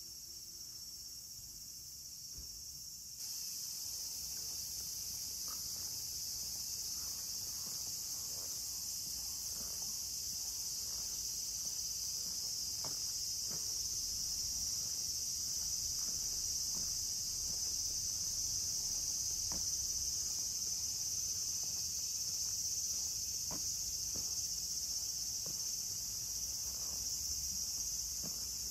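Cicadas singing in a steady, high-pitched chorus, which gets louder about three seconds in.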